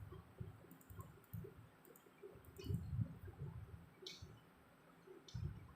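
A few faint clicks, such as from a computer mouse, three of them sharper than the rest, among soft low bumps.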